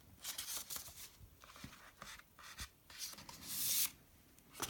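Cardboard CD sleeves and packaging being handled and slid against each other: a run of short rubbing, sliding scrapes, with a longer rustle a little before the end and a sharp tap right at the end.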